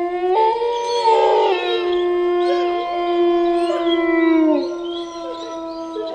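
Wolves howling: long, held howls at several pitches overlapping, with the lowest howl sliding down about four and a half seconds in.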